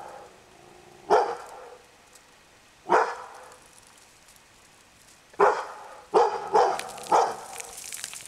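Hunting dog barking six times: single barks about two seconds apart at first, then four barks in quicker succession near the end.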